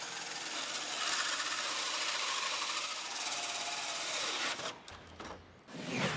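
Hole saw on a drill cutting a vent hole through a plywood panel: a steady rasping cut through the wood that stops about four and a half seconds in. Near the end, a short falling whoosh.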